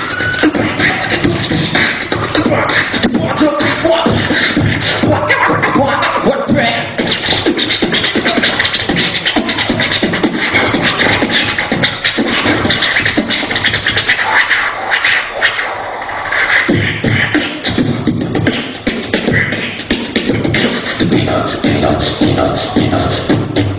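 Beatboxing: a person making drum beats and other sounds with the mouth and voice, in a fast, dense rhythm. The bass drops out for about two seconds a little past the middle, then comes back.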